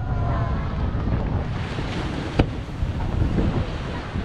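One aerial firework shell bursting with a sharp bang about two and a half seconds in, over a steady low rush of wind on the microphone and surf.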